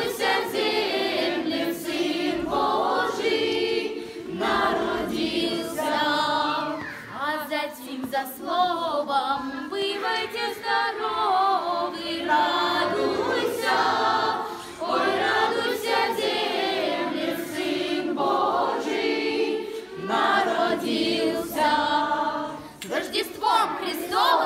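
Children's choir singing a Christmas carol.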